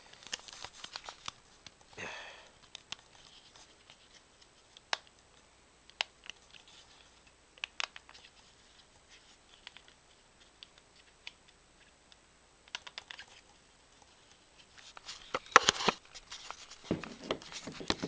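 Scattered sharp clicks and light knocks of a small wooden combination-lock puzzle being handled and its dials turned, with a busier patch of clicking and rustling handling near the end.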